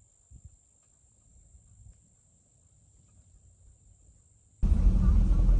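Near silence, then about four and a half seconds in a sudden loud, steady low rumble of a car driving.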